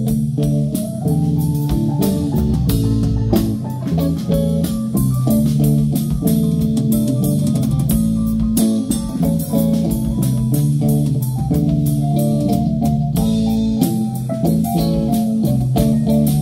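Live band playing an instrumental passage with no singing: electric keyboard, bass guitar and drum kit, with steady drum hits.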